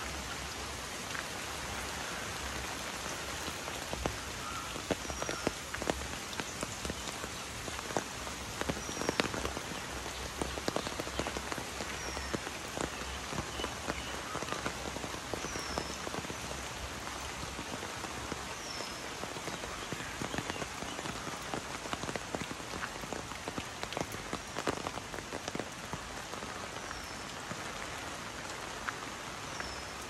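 Steady rain, with frequent sharp drop hits on an umbrella overhead. A short, high, falling chirp from a small animal repeats about every three seconds.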